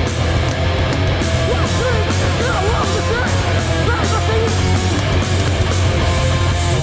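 Hardcore band playing live with loud distorted guitars, bass and drums, cymbals crashing steadily. The music stops abruptly at the very end.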